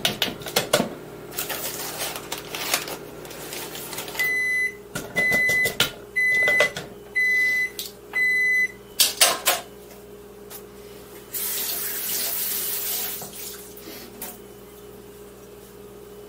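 Microwave oven's end-of-cycle alert: five evenly spaced high beeps, each about half a second long and about a second apart, among clicks and knocks of kitchen utensils. A few seconds later, water runs from a kitchen tap into the sink for a couple of seconds.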